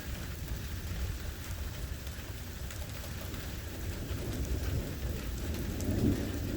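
Rain falling during a severe thunderstorm, with scattered drops ticking and a low rumble of thunder that swells about two-thirds of the way through.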